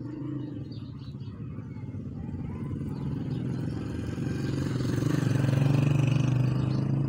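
A motor vehicle's engine passing, its low hum building steadily to its loudest about five to six seconds in and then beginning to fade.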